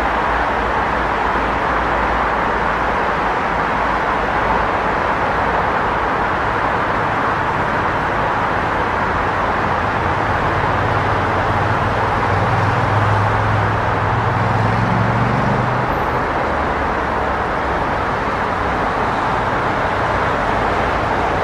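Busy city street traffic: a steady wash of car engines and tyres on the road. About halfway through, a deeper engine hum from one vehicle swells, rises in pitch and fades out.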